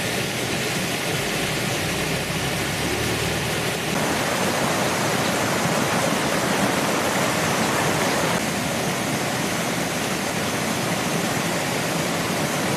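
Flash-flood runoff rushing and churning in a steady, loud roar of water, with the sound shifting about four seconds in and again near eight seconds.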